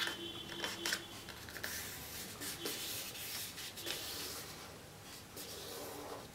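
A sheet of A4 paper being folded and its crease pressed and rubbed flat by hand: dry rubbing and rustling, with a few sharp crinkles in the first second or so.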